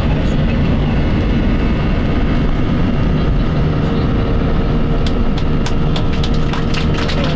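Airbus A321 at takeoff thrust, heard inside the cabin during the takeoff roll and rotation: loud, steady engine and rolling noise. A steady hum comes in about halfway, and a quick run of clicks and knocks follows near the end.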